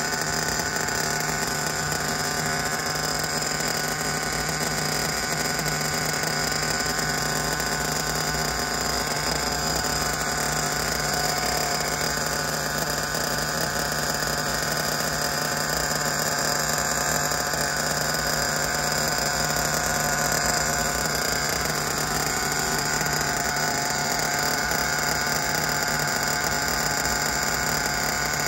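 Nitro engine of a Kyosho Inferno NEO ST 3.0 RC buggy idling steadily.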